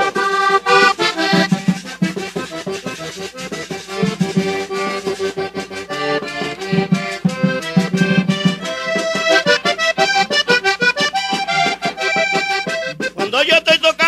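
Vallenato accordion playing an instrumental interlude between sung verses, its melody carried over percussion that keeps a quick steady beat. Singing comes back in about a second before the end.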